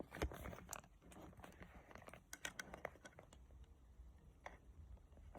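Near silence with faint, scattered small clicks and taps from a phone being handled and set on a wireless charging pad.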